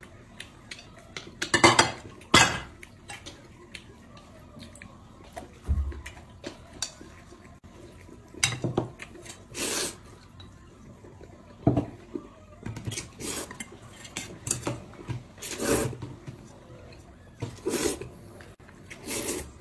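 Chopsticks and porcelain plates clinking and clattering in short, scattered knocks, with a few longer slurps of noodles being sucked up.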